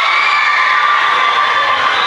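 Many high young voices cheering together in one long held shout, echoing in a large gym.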